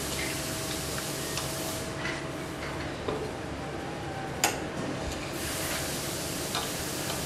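Factory workshop noise: a steady hiss that swells and fades, a faint steady hum, and a few sharp clicks, the loudest about four and a half seconds in.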